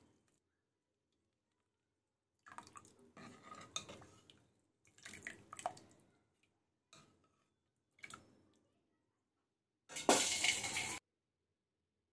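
A metal ladle stirring sambar in a pot, in several short bouts of scraping and clinking with the liquid, and a louder clatter of metal on the pot about ten seconds in.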